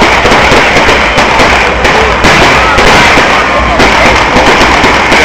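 Fireworks display: a dense, continuous barrage of crackling and booming shell bursts, loud enough to push the recording close to full scale.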